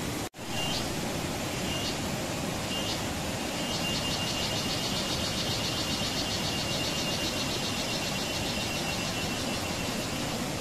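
Steady rushing background noise with a high, pulsing insect chirr: it comes in short snatches at first, then runs steadily for several seconds before stopping near the end. The sound drops out briefly just after the start.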